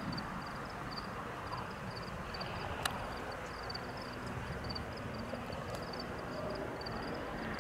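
Insects chirping in short high-pitched pulses repeated a few times a second over a steady low rumble of outdoor noise, with one sharp click about three seconds in.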